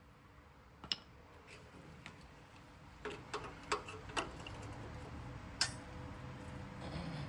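Locking pliers being fitted and clamped onto the partly cut steel of a Jeep frame rail: a series of irregular clicks and small metal knocks.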